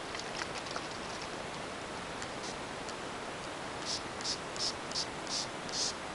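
Pump spray bottle of Glimmer Mist spray ink spritzing about six times in quick succession, each a short hissing puff, after a few faint ticks of handling.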